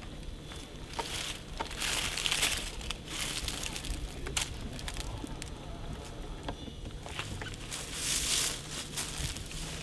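Intermittent rustling in the woods, swelling twice, with a few light clicks.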